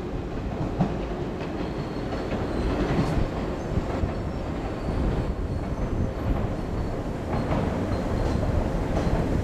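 A train moving through the station, its wheels and running gear rumbling along the rails, with a few short high squeals.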